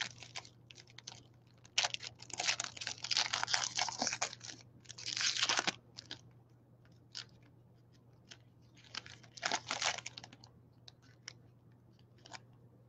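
Clear plastic shrink-wrap being torn and crumpled off a sealed box of trading cards. It comes in bursts of crinkling, the longest over a few seconds near the start and another about nine seconds in, with small clicks and taps between.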